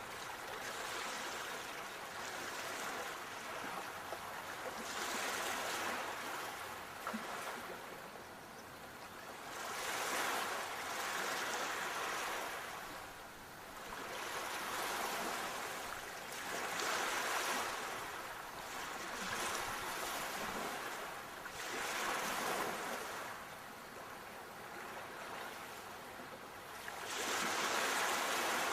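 Sea waves washing in, a steady hiss of surf that swells and fades about every five to six seconds.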